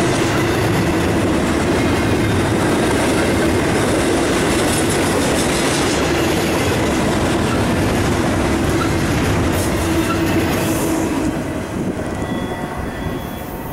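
Double-stack intermodal container cars of a freight train rolling past: a steady rumble of steel wheels on rail with a constant tone running through it. The last car goes by about eleven seconds in, and the noise falls away.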